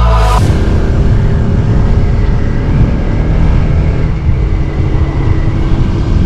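Motorcycle engine running steadily at road speed with heavy wind rush over the microphone. A background music track cuts off about half a second in.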